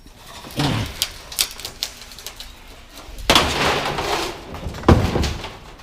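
Scrap being handled and loaded: several sharp knocks and clanks, then a longer scraping rattle, then a heavy knock near the end.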